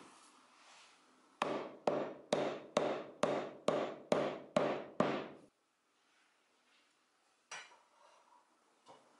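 A mallet striking pine beams, nine even blows about two a second, driving a mortise-and-tenon joint home. A single lighter knock follows a couple of seconds later.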